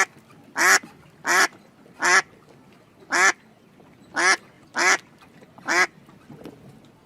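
An animal's short call, repeated about eight times at slightly uneven intervals of roughly one a second, then stopping near the end.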